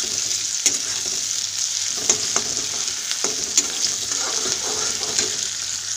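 Sliced onions, green chillies and bay leaves sizzling in hot oil in a metal kadhai, being fried lightly toward golden brown. A spatula stirs them, scraping and clicking against the pan every so often.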